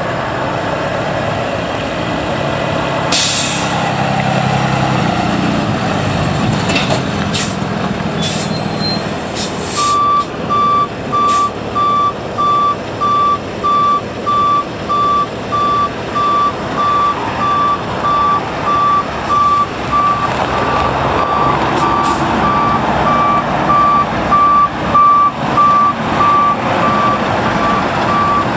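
Freightliner M2 box truck's Cummins ISB 6.7-litre six-cylinder diesel running, with a short burst of air-brake hiss about three seconds in. From about ten seconds in its reverse backup alarm sounds a steady high beep, about three beeps every two seconds: the truck is in reverse.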